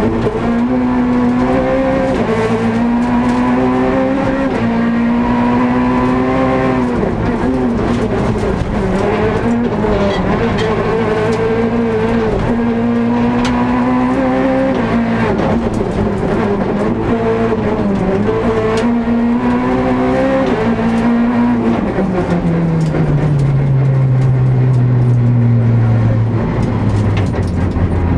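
Peugeot 208 R2 rally car's 1.6-litre four-cylinder engine, heard from inside the cabin, revving up and dropping back again and again through gear changes at speed. About 22 seconds in, the revs fall in one long slide and hold at a lower, steady pitch.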